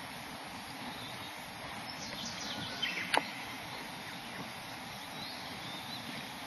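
Kayak paddling on calm water: drips and small splashes from the paddle, with one sharp knock a little after three seconds, over a steady outdoor hiss.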